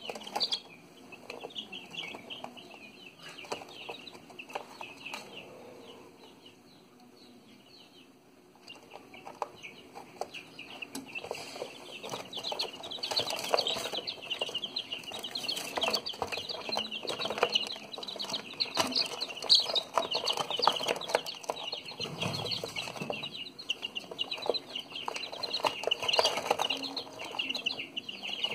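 A flock of young chicks peeping continuously, with many overlapping short, high chirps. The peeping thins out and quiets for several seconds early on, then picks up again, busier and louder, from about eight seconds in.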